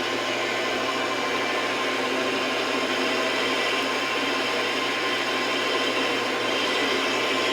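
Metal lathe running steadily with a constant whir, turning the steel bar of a bench vise handle.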